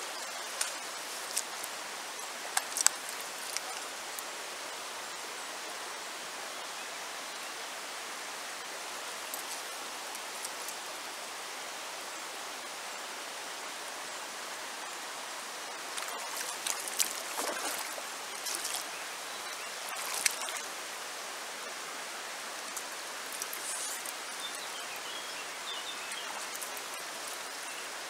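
Shallow, stony river flowing in a steady rush of running water, with scattered sharp clicks over it, a cluster near the start and more about two-thirds of the way through.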